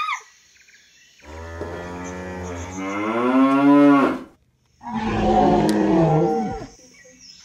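Two long dinosaur calls voicing the Pteranodon. The first starts about a second in and runs about three seconds, wavering and rising in pitch over a low hum. The second, shorter call comes after a brief gap.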